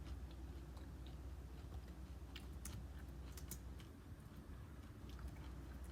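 Close-up chewing of crunchy cereal: soft crackling, with a few sharp crunches around the middle.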